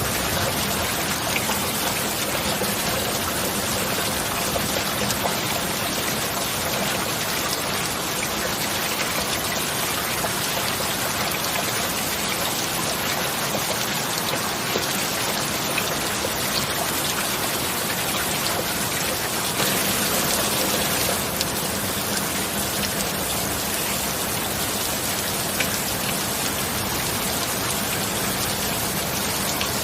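Steady heavy rain with scattered sharp drop ticks, briefly heavier about two-thirds of the way through, over a faint steady low tone.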